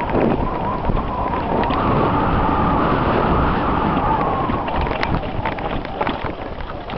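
Mountain bike ridden along a dirt trail: wind rushing over the camera microphone, a steady rumble, and sharp clicks and rattles over bumps, with a wavering whine through the first four seconds or so.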